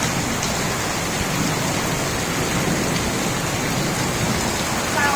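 Heavy rain pouring steadily, a dense even hiss of drops hitting surfaces.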